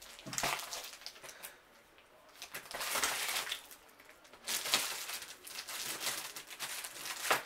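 Plastic bubble mailer crinkling and rustling in irregular bursts as it is handled and opened.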